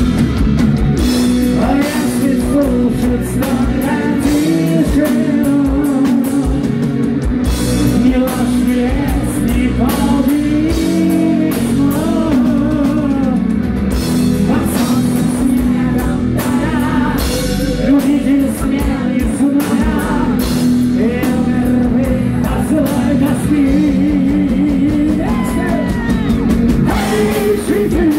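Heavy metal band playing live: distorted electric guitars, bass and drums, with a male singer's vocals over them.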